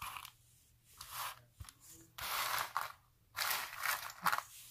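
Handling noise as a beaded necklace is worked in the hands: four or five short scratchy rustling and rubbing bursts, about a second apart.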